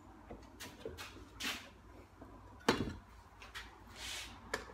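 Pieces of wood being handled and fitted together: scattered knocks and short scraping rustles, the loudest a sharp knock a little past the middle.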